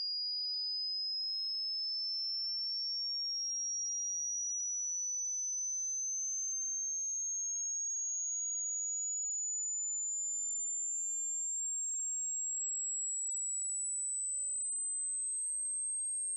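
Hearing-test tone: a single pure, very high whistle-like tone rising slowly and evenly in pitch at a steady loudness, a frequency sweep climbing toward the upper limit of hearing.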